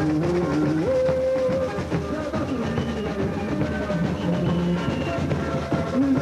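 Samba school parade music: a bateria's drums and percussion playing samba, with a melody line over them that holds one note about a second in.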